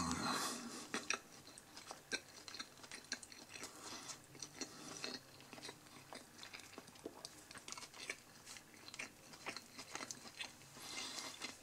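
A person chewing a mouthful of double beef burger on a soft brioche bun: quiet, irregular mouth clicks and smacks, a little louder in the first second.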